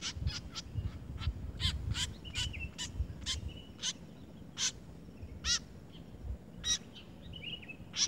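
White-breasted woodswallows calling at a nest with chicks: short, sharp, repeated calls, several a second in the first half and sparser later.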